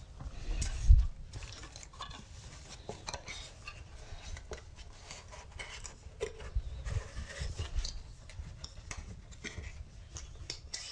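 Hands handling small items on a desk: scattered light clicks and rustles, with a low thump about a second in.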